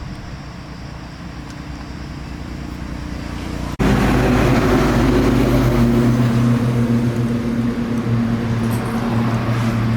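YLHX 1500 generator's small engine running steadily; about four seconds in it abruptly gets much louder and stays loud.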